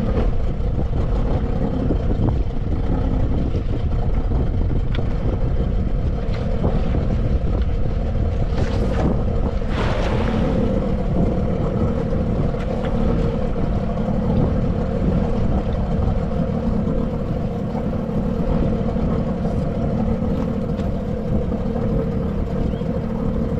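Boat motor running steadily at low speed, with a cast net landing on the water in a brief splash about ten seconds in.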